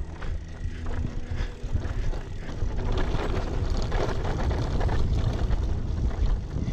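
Bicycle ridden over a bumpy dirt and grass trail: a steady low rumble of wind on the action camera's microphone, with tyre noise and many small knocks and rattles from the bike over bumps.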